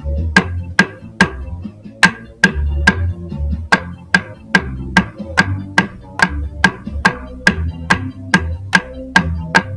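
Play-along backing track for bucket drumming: a bass line under a steady sharp click about two and a half times a second.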